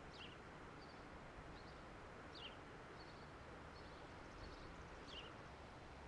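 Faint outdoor ambience with a songbird calling: three short downward-sliding chirps about two and a half seconds apart, with softer chips between them.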